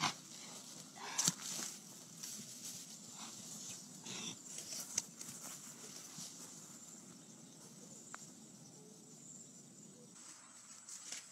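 A metal hoe striking packed earth twice near the start, then a few fainter knocks and rustles over a quiet outdoor background.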